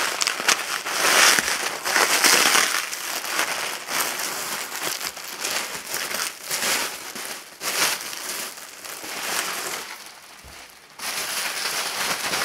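Plastic bubble wrap crinkling and rustling as it is handled and pulled open by hand, in irregular crackly bursts, with a brief lull shortly before the end.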